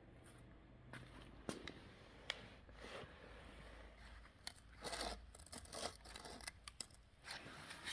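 Irregular clicks, taps and short scrapes and rustles of things being handled, growing busier about halfway through.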